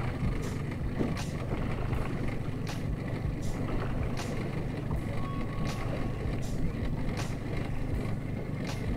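Small boat motor running steadily with a low hum while trolling, with a light tick repeating a little more than once a second.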